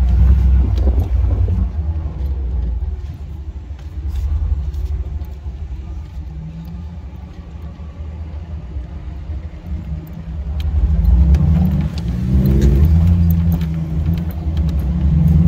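Jeep engine pulling through soft sand, heard from inside the cab. The low engine drone eases off in the middle, then swells again after about ten seconds, with a rising rev as the throttle opens.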